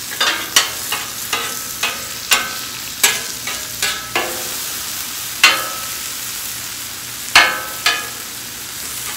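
Onions sizzling on a flat-top griddle while a metal spatula scrapes and clanks against the cooking surface, turning and gathering them. A quick run of sharp, ringing taps comes first, then a few single clanks further apart.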